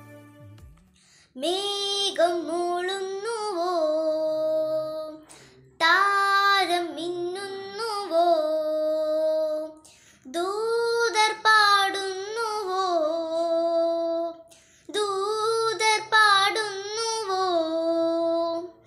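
A young girl singing solo, one voice in four sung phrases of about four seconds each with short breaks for breath between them.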